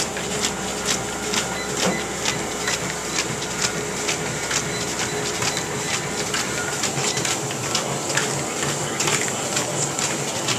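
Running footsteps on a motorized treadmill: evenly paced footfalls, about two a second, over the steady whine of the treadmill's motor and belt.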